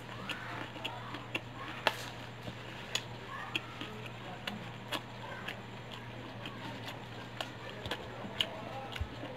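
Someone chewing thick-crusted fried chicken close to the microphone: irregular crisp crunches and clicks of the floury batter, over a faint steady hum.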